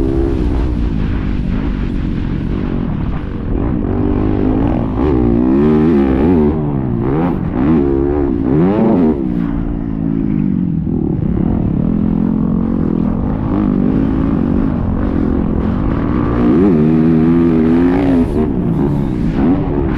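Motocross dirt bike engine revving as it is ridden around the track, its pitch climbing and dropping again and again with the throttle, over a steady low rumble.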